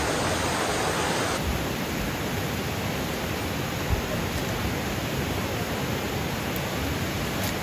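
Steady rushing of a creek, an even hiss of flowing water, with a single soft knock about four seconds in.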